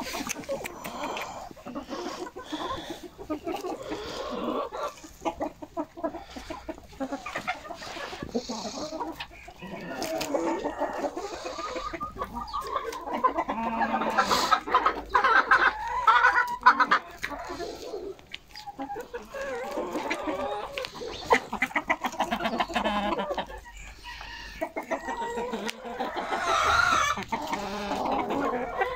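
A flock of backyard hens clucking, with many short calls overlapping one another.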